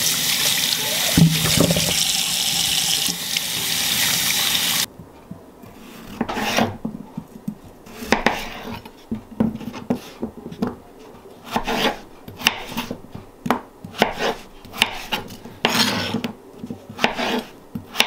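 A kitchen tap runs as peeled potatoes are rinsed under the stream in a stainless steel sink, cutting off suddenly about five seconds in. Then a kitchen knife chops potatoes on a cutting board in short, irregular knocks and scrapes.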